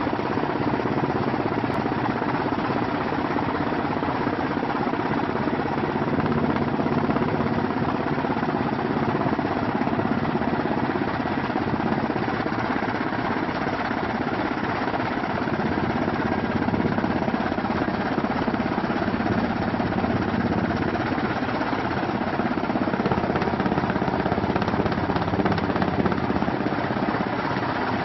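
Helicopter in flight heard from inside the cabin: steady engine and rotor noise with a faint steady whine on top.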